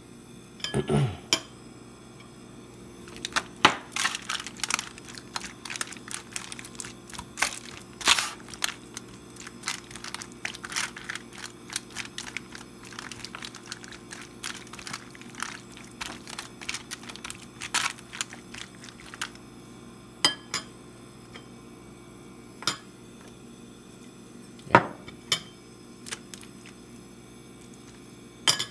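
Metal spoon scraping and clinking against a foil-lined pan and crinkling the foil while it mixes raw chicken pieces in sauce. The strokes come in quick irregular runs that thin out to a few scattered clinks in the second half, over a steady low hum.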